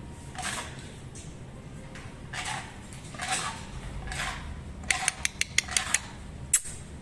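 An animal grinding its teeth: short scraping rasps about once a second, then a quick run of sharp clicks of teeth near the end.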